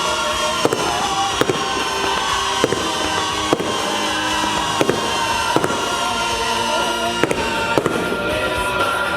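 Fireworks going off in sharp, irregular bangs, roughly one a second, over music playing throughout.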